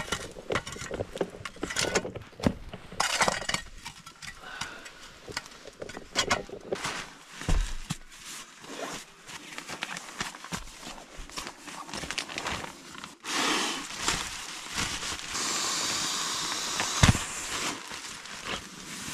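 A metal shovel scraping and knocking burning logs as a wood fire is broken down and banked, with crackling and clatter. Later comes the rustle of nylon bedding gear being handled, with a sharp thump near the end.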